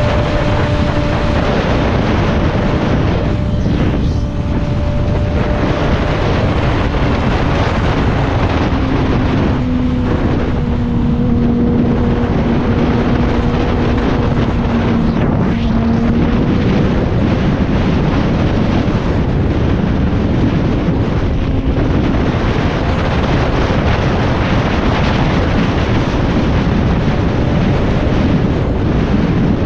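Sport motorcycle running at highway speed: heavy wind rush on the microphone over the engine's steady drone. The engine note drops a little about eight seconds in and holds there for several seconds.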